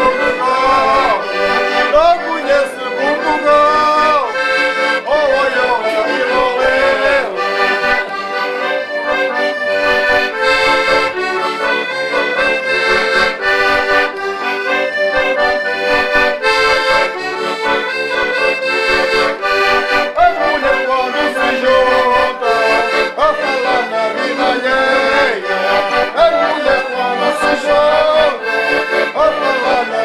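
Hohner diatonic button accordion playing a lively traditional Portuguese folk tune, a melody over held chords, without a break.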